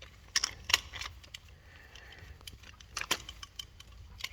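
Small metal tools and parts clicking and clinking as they are handled, several quick clinks in the first second, a few more around three seconds in and one near the end.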